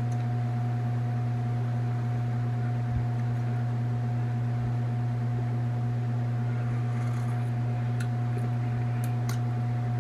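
A loud, steady low hum with a fainter, higher steady tone over it, unchanging throughout. A few faint clicks come near the end.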